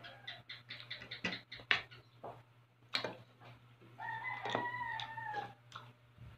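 A rooster crowing once: a single drawn-out call of about a second and a half near the middle, sliding slightly up and then down. Around it are light clicks of spoons and forks on plates and plastic tubs as people eat.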